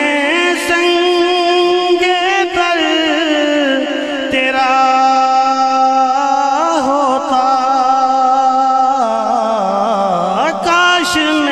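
A man singing a naat into a microphone, holding long drawn-out notes that waver up and down in ornamental turns.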